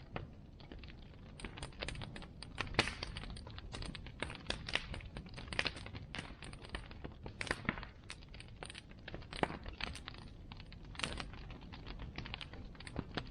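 Bonfire crackling: irregular sharp pops and snaps, several a second, over a low steady rumble.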